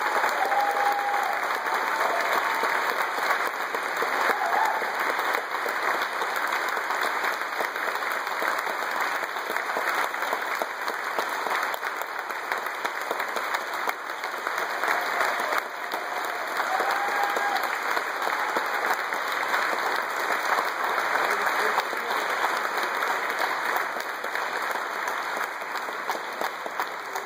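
Audience applauding steadily in a large hall, with a few brief voices calling out over the clapping.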